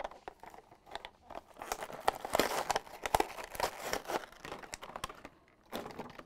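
Cardboard backing being torn and a clear plastic blister crinkling as a die-cast toy car's blister-card package is ripped open: dense, irregular crackling and tearing, busiest in the middle.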